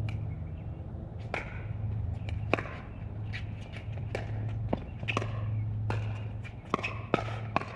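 Pickleball rally: paddles striking a hard plastic pickleball, with the ball bouncing on the court, in a quick series of sharp pops about two a second. A steady low hum runs underneath.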